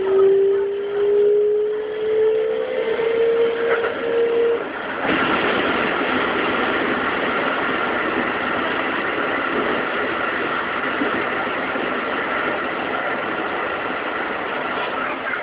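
Keikyu 2100-series electric train heard from the cab. Its Siemens GTO inverter gives a steadily rising whine under acceleration that stops about four and a half seconds in. Just after, a sudden, louder, steady rumble of rolling wheels and rails sets in as the train enters a tunnel.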